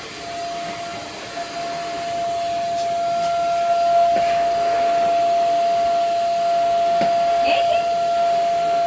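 Vacuum cleaner running steadily, a continuous whine over a hissing rush, with a couple of brief knocks over it.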